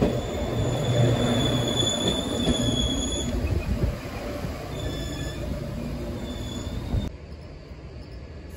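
JR Kyushu 813 series electric train running slowly alongside the platform: a low running hum with a high, steady squeal for the first few seconds, then shorter squeals as the sound fades. About seven seconds in it cuts to much quieter background noise.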